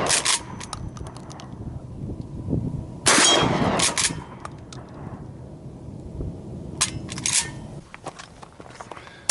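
Gunshots at targets, several in a row: the loudest pair comes about three seconds in, with fainter shots near seven seconds and one just at the start.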